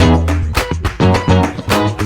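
Background music: an upbeat guitar track with bass and a steady beat.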